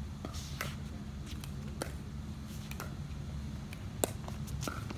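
Pickleball rally: paddles striking the hollow plastic ball, a sharp pock about once a second, the loudest about four seconds in, over a steady low hum.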